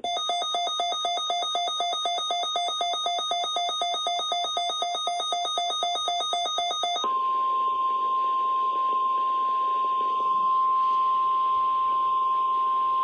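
NOAA Weather Radio alert: a rapidly pulsing electronic alarm beep, about four beeps a second, for about seven seconds. It then gives way to the steady single-pitch 1050 Hz warning alarm tone, which signals a weather alert, here sent as a test.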